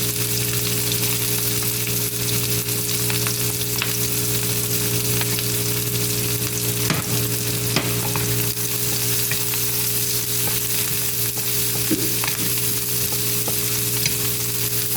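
Garlic and onion sautéing in hot cooking oil in a pan: a steady sizzle, with a few sharp clicks of the stirring utensil against the pan, about seven, eight and twelve seconds in.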